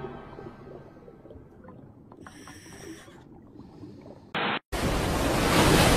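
Cartoon underwater ambience: a faint low rumble with a few scattered faint clicks. About four seconds in there is a brief burst and a split-second dropout, then a loud, steady rush of ocean water.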